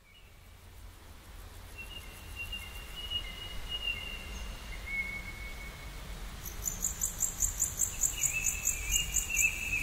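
Bird-like whistles held long and gliding slightly, joined about two-thirds in by a fast, high, cricket-like chirping, all over a low rumble and slowly fading in.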